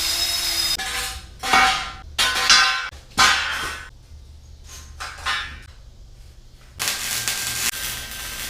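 A power driver's motor running steadily and stopping just under a second in, followed by several sharp metallic clanks with a short ring, then a steady hiss near the end.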